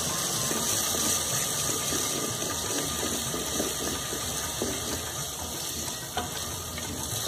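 Sliced onions sizzling in hot oil in a clay handi, a steady hiss, with a wooden spoon scraping as it stirs them.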